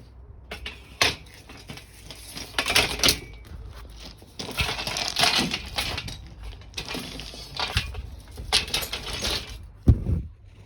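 Irregular knocks, clatter and rustling of the camera being handled, moved and set down, with a sharp knock near the end. No chainsaw is running.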